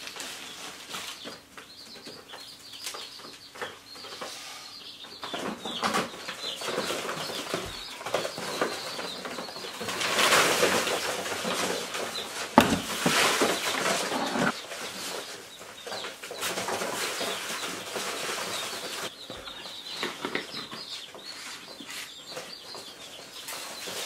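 Ducklings and chicks peeping in a brooder, over rustling and handling noises as the waterer and bucket are moved about. About ten seconds in there is a louder rush of rustling, then a sharp knock.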